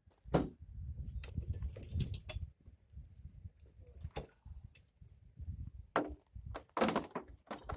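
Hand tools clattering and knocking together as they are taken out of a toolbox and sorted, with irregular sharp clanks and rattles.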